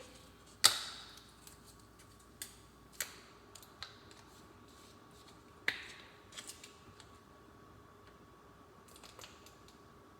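Sharp kitchen clicks and taps from handling a container and utensils: a loud snap less than a second in, a few lighter taps, another louder click near six seconds, then faint ticks.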